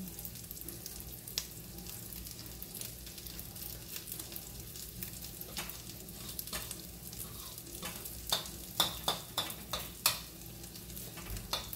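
Vegetable omelette patties sizzling steadily in oil in a frying pan, while a utensil stirs in a ceramic bowl. In the last few seconds there is a quick run of sharp clinks against the bowl.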